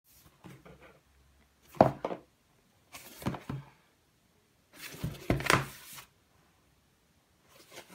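Cardboard box being handled and turned over on a wooden table: several short bursts of rubbing and knocking about a second apart, the loudest about two seconds in and again past the middle.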